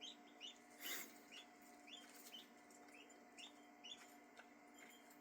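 Three-day-old ducklings peeping: a faint, steady run of short rising peeps, about two or three a second. A brief rustling hiss cuts in about a second in.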